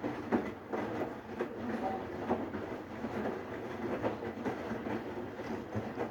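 Siemens iQ500 varioPerfect front-loading washing machine in its wash cycle: the drum turning with towels tumbling in the water, giving a steady churning clatter with irregular knocks.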